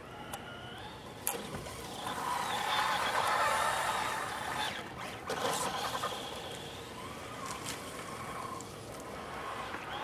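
Brushless electric motor of a Traxxas 1/10 Rally VXL radio-controlled car whining as it drives through snow, its pitch rising and falling with the throttle, loudest a couple of seconds in.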